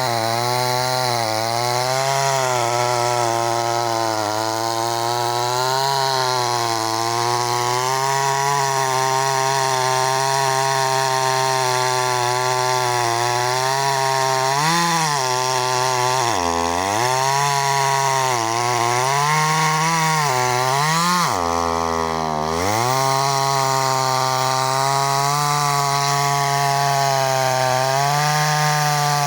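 Two-stroke chainsaw running at high revs while cutting wood, its pitch wavering under load. Twice the engine drops sharply toward idle and revs back up, the second time for about a second.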